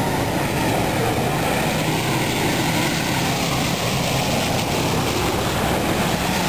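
Pickup trucks and SUVs driving slowly through a flooded road, engines running and water splashing around the wheels as a steady noise.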